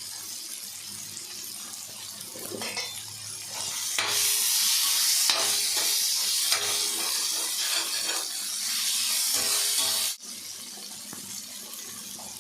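Onion, chilli and capsicum masala sizzling in a hot kadai as it is stirred. The sizzle swells into a loud hiss about four seconds in and cuts off suddenly about ten seconds in.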